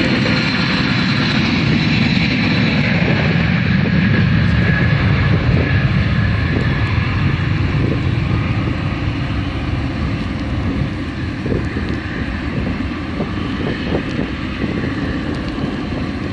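Boeing 757 airliner's twin turbofan engines at takeoff power: a loud, deep jet rumble with a thin whine that slides slightly down in pitch near the start. The noise eases off a little in the second half as the jet climbs away.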